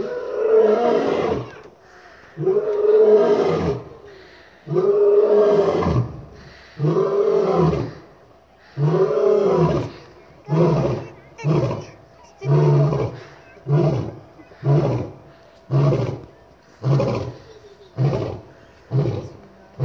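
Male lion roaring: a full roaring bout of five long, deep roars about two seconds apart, then a run of shorter grunting calls that come faster and faster toward the end.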